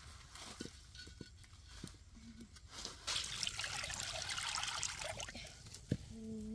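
Water poured in a stream into a black wok, splashing loudly for about two seconds, starting about three seconds in, after a few light knocks. A single sharp knock follows near the end.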